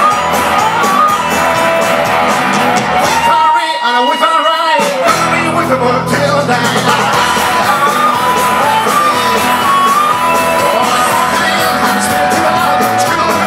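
A rock band playing live, with singing over acoustic guitar, electric bass and drums. The bass and drums drop out for about a second and a half around four seconds in, then come back in.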